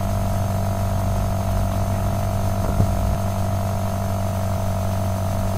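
Steady electrical hum and buzz picked up in the recording, with a faint single click about three seconds in.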